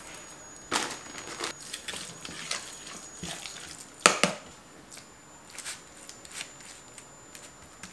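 Plastic bag crinkling as chopped parsley is shaken out of it, then a metal spoon stirring and scraping a wet minced-meat topping in a clear bowl, with a sharp clink of spoon against bowl about four seconds in, the loudest sound. Near the end a spoonful of topping is scooped out onto the dough.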